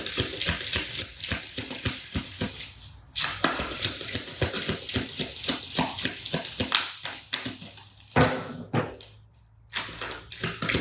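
Tarot cards being shuffled by hand, a fast crackle of card edges in long runs broken by short pauses, the deck being mixed to draw another card.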